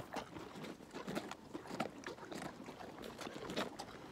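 An animal crunching and chewing carrots, a run of irregular small crunches.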